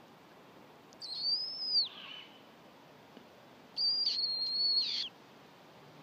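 Great horned owl screeching twice: two high, drawn-out screeches of about a second each, both dropping in pitch at the end.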